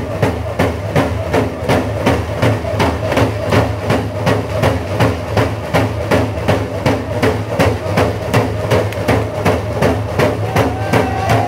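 Dene hand game drumming: several hand-held frame drums beaten together in a steady, fast beat of about three strokes a second, with voices singing along. A high held call comes in over the drumming near the end.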